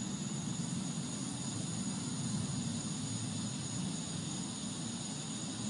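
A steady low rumbling drone of the kind reported as the unexplained 'strange sound' or 'sky trumpets', unbroken at an even level, with a faint steady high whine above it.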